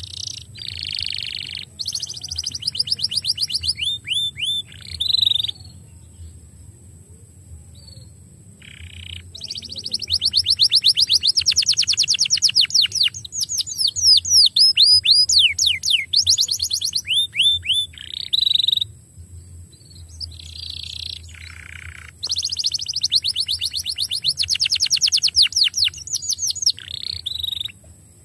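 Domestic canary singing: phrases of fast trills and rapid downward-sweeping notes, with pauses of a few seconds between song bouts.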